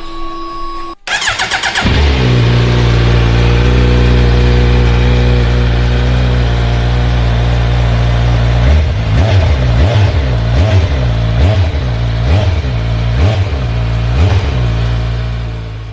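Kawasaki Z900's inline-four engine starting after a brief beep: a short crank, then it catches and settles into a steady idle. From about halfway through the throttle is blipped again and again, about seven quick revs, each rising and falling back to idle.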